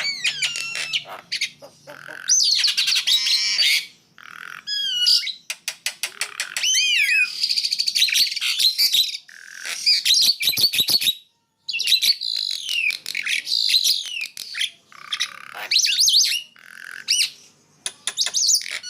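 Two songbirds singing back and forth in a lively duet: fast gliding whistles, sharp notes and rapid clicking trills, with a brief pause about eleven seconds in.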